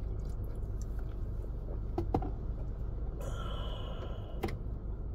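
A steady low background hum with a few faint clicks, and a short breathy exhale with a faint whistle-like tone about three seconds in.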